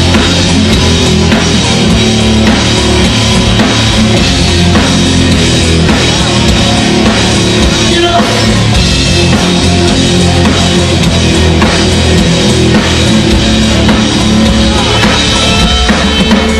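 Live rock band playing loudly, with a drum kit and electric guitar, heard from within the audience.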